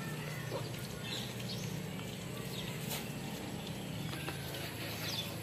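Quiet outdoor background with scattered faint bird chirps over a low steady hum, and a single click about three seconds in.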